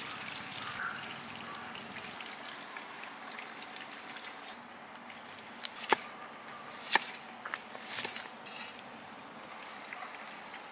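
Oil sizzling steadily as coated sole fillets fry in an iron kadai. Midway there are four or five sharp chops, about a second apart, as a cleaver slices a red onion on a wooden chopping block, and then the sizzling resumes.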